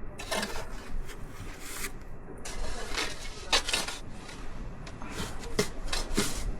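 Snow shovel scraping and scooping snow in a series of irregular strokes, several close together about halfway through and again near the end.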